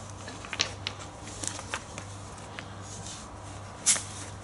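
Small nagura stones being picked up and clacking together in a gloved hand: a few light clicks, then one sharper knock near the end, over a steady low hum.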